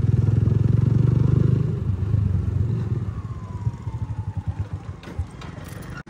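Motorcycle engine running under the rider, its rapid firing pulses loud at first and then fading as the bike slows. A faint falling whine passes about halfway through.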